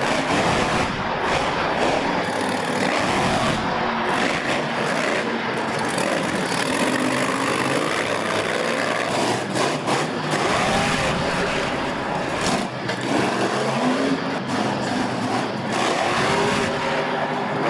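Monster truck engine revving hard and rising and falling in pitch as the truck drives and wheelies over crushed cars, with a few sharp knocks in the middle.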